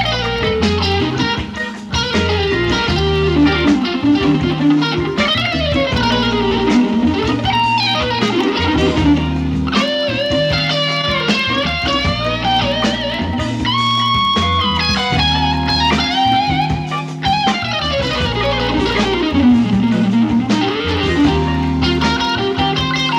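Electric guitar solo on a Stratocaster-style guitar, with sustained lead notes, string bends and fast runs, over a steady bass line with a live band.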